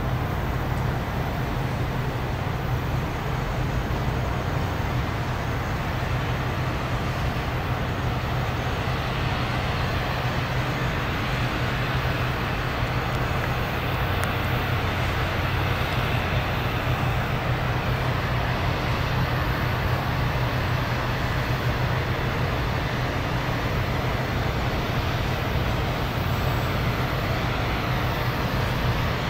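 Loram rail grinder train working along the track: a steady low drone of its diesel engines under a continuous rough hiss from the grinding stones on the rail, holding an even level throughout.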